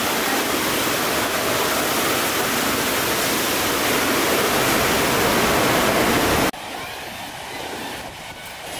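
Steady roar of ocean surf breaking on the reef, a dense even rush of white water. It cuts off abruptly about six and a half seconds in, giving way to a much quieter sound.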